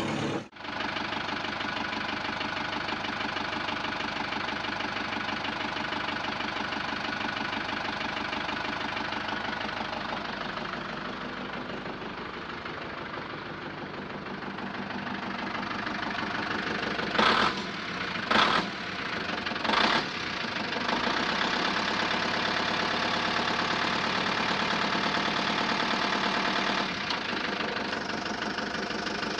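Heavy truck engine running steadily, a sound effect laid over hand-pushed toy trucks. It cuts out briefly just after the start, and three short hisses come about two-thirds of the way through.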